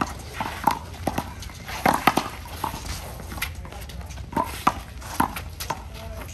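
Handball rally: a small rubber ball smacked by gloved hands and rebounding off the wall and court, a run of about a dozen sharp, irregularly spaced slaps.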